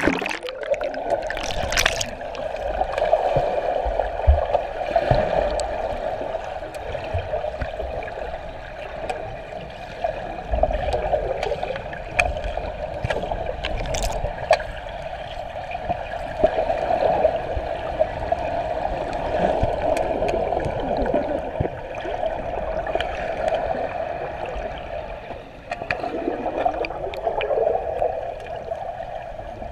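Muffled underwater pool sound heard through a GoPro Hero3+'s waterproof housing: a steady rush of water with scattered bubbly clicks and knocks, after a burst of splashing in the first couple of seconds as the camera goes under.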